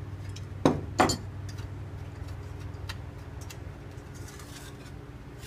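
Two sharp knocks close together about a second in, over a steady low hum, with a few faint ticks later.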